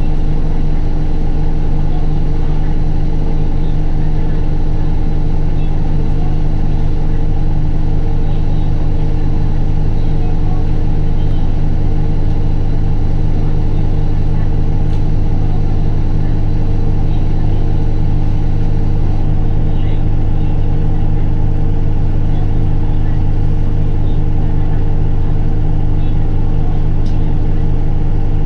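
Isuzu Erga city bus diesel engine running at a steady, unchanging speed, with a low hum, heard from inside the passenger cabin.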